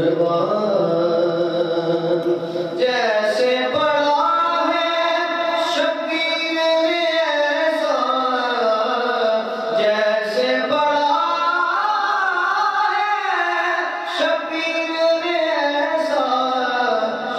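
A man singing a nasheed into a microphone without instruments, in long held notes that slide and waver in ornamented runs. New phrases begin about three and ten seconds in.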